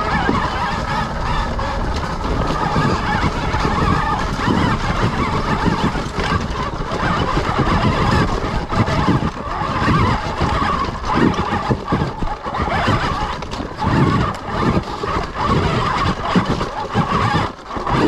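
Sur-Ron electric dirt bike being ridden: a steady, slightly wavering motor whine over irregular low thumps.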